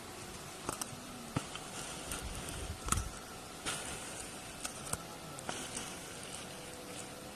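Faint rustling of dry tall grass with about half a dozen scattered soft clicks and knocks, the loudest about three seconds in.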